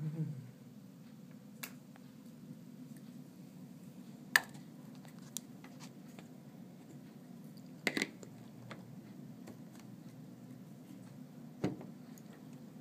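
Scattered sharp clicks and taps, about half a dozen, from small tools and parts being handled while taking apart an iPad 2, over a steady low hum.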